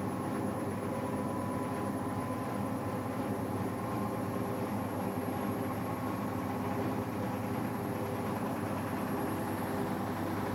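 AEG washing machine running in its spin cycle: a steady motor and drum hum with a faint whine that rises slowly in pitch.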